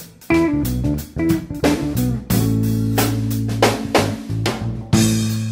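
Background music: electric guitar, bass and drum kit playing a steady beat.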